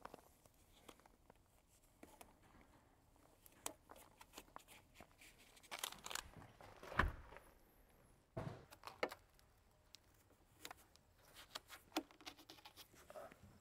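Faint, scattered taps, clicks and rustles of hands working over a steel door's frame and weatherstripping, with a sharper knock about seven seconds in.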